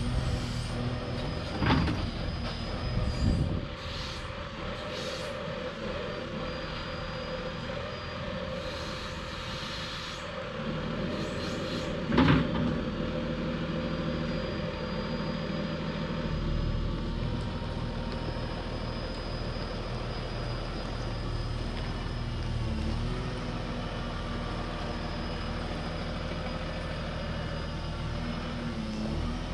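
Volvo L120H wheel loader's diesel engine running steadily as it works with a raised bucket of dirt, with a few short knocks, the loudest about twelve seconds in.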